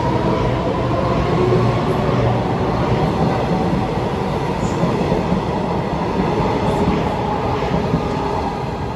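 Taiwan Railway EMU500 electric multiple unit departing the station, its cars running past at close range with a loud, steady rumble of motors and wheels on the rails. The sound eases off slightly near the end as the last car goes by.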